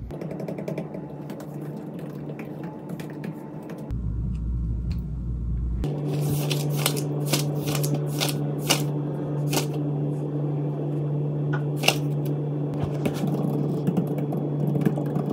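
Typing on a laptop keyboard: irregular key clicks, coming thick and fast from about halfway in, over a steady low hum.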